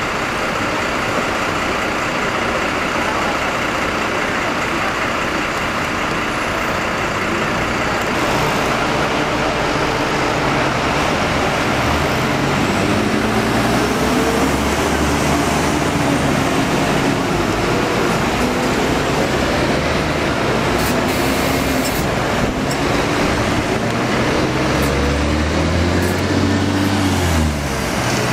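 City bus traffic heard from the open top deck of a bus: a steady mix of engine and road noise. In the second half a bus engine note rises and falls several times, loudest about three seconds before the end.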